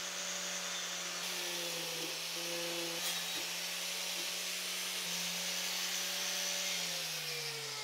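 Corded angle grinder with a wire cup brush running steadily, scrubbing rust off a small steel ring spanner. The motor winds down near the end.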